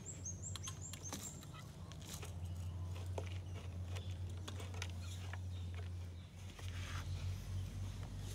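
Hands scraping and pressing loose soil in a plastic pot: irregular soft scratching and crumbling rustles over a steady low hum. A few short, high chirps come in the first second.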